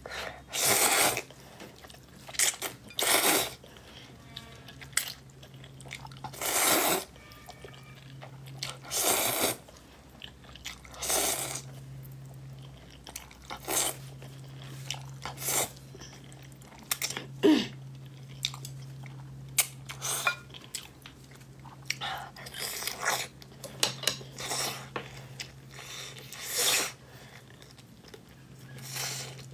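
Close-miked eating: glass noodles slurped up in a run of loud sucks, each half a second to a second long, with chewing and lip smacks between them.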